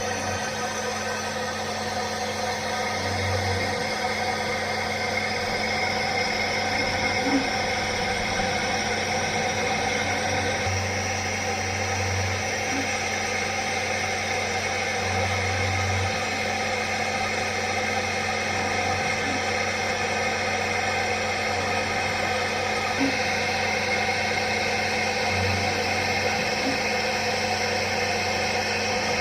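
CNC machine running steadily, a continuous mechanical whine of several high tones over a constant hum.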